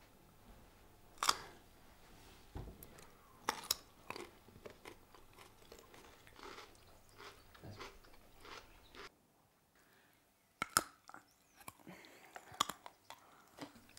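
People biting into and chewing raw carrot sticks: several sharp crunches spread out, with quieter chewing between them.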